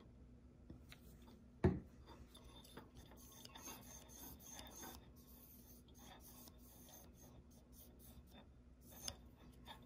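Alps K-series fader carriage slid back and forth along its steel rails to work in a fresh drop of silicone oil, giving a faint sliding, rubbing sound. A sharp knock comes about a second and a half in, and a smaller one near the end.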